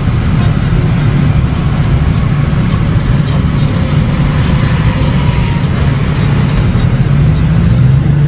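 Car driving slowly in traffic, heard from inside the cabin: a steady low engine and road rumble, with the engine note rising a little near the end.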